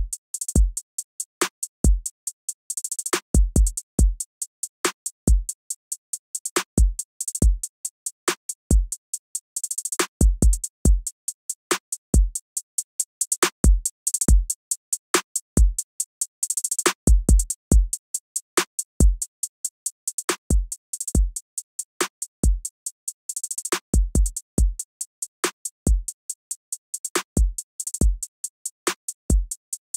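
Programmed trap drum loop at 140 BPM playing back from Maschine: short kick drum hits, snares and fast note-repeat hi-hats with rolls in places, running through a compressor.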